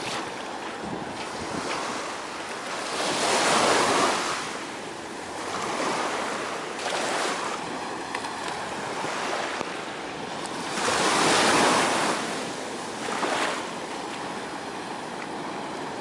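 Small waves breaking at the edge of a steep sandy beach and washing up and back over the sand, the surf swelling louder every three to four seconds, with the biggest surge a little past the middle.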